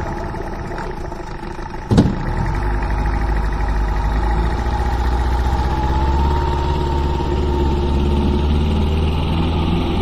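Boat engine running steadily, with a sharp knock about two seconds in, after which it runs louder.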